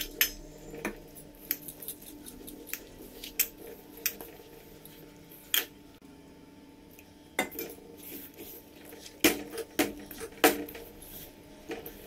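Irregular clinks and knocks of hands, glass bangles and a steel cup against a stainless steel bowl as flour dough is mixed by hand and ice water is poured in. The loudest knocks come about nine and ten and a half seconds in.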